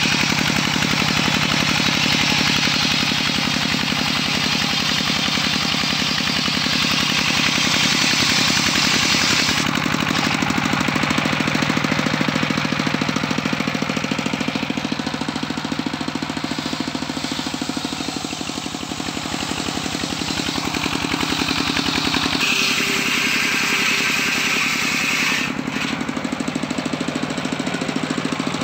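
Engine-driven circular sawmill running steadily with a fast knocking beat, its large blade ripping lengthwise through a log. The high hiss of the cut is strong for about the first ten seconds, eases, and returns for a few seconds near the end.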